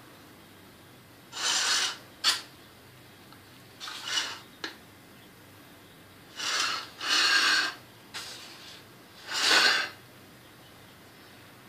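A kitchen utensil scraping against a pan or dish in about half a dozen short rasping strokes, with two brief sharp clicks between the first few.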